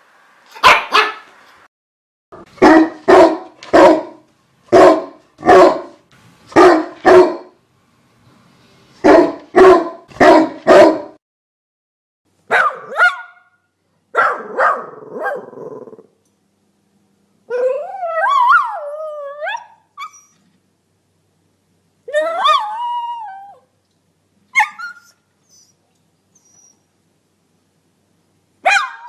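Dogs barking: a run of sharp barks, many in pairs about a second apart, for the first half. Then come a few wavering cries that slide in pitch, and a couple of single short barks with pauses between.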